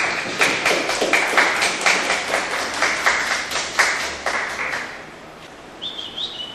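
A small audience clapping, the separate claps distinct, dying away about five seconds in; a brief high chirp follows near the end.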